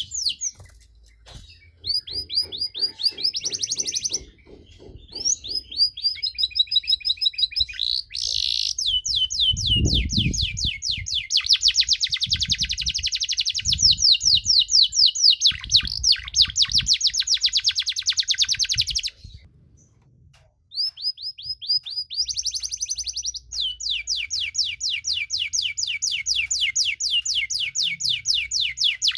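Domestic canary singing a long song of fast, rolling trills and chirped phrases, pausing briefly about a second in and again about two-thirds of the way through.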